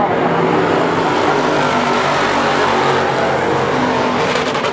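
Several dirt-track race car engines running hard around the oval together, a loud, steady drone of overlapping engine notes, with a quick run of crackles near the end.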